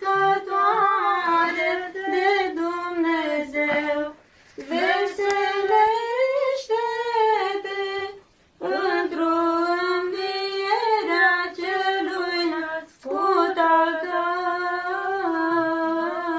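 A nun sings a solo Orthodox chant unaccompanied. Her voice carries melodic turns, in phrases of about four seconds with short breaks for breath between them.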